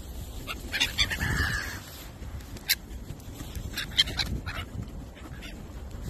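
Gulls calling in short cries, several in quick succession about a second in, one about halfway through and another cluster near four seconds, over a low rumble of wind on the microphone.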